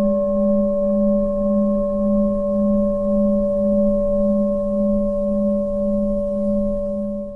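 Sustained ringing drone of a singing bowl: a low tone wavering about twice a second under a few steady higher overtones.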